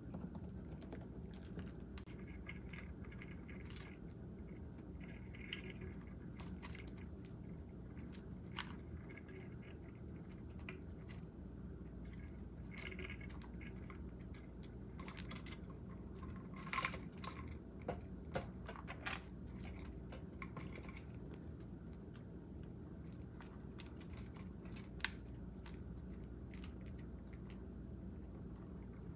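Budgerigars eating: scattered small clicks and crunches of beaks cracking seed, some in quick clusters.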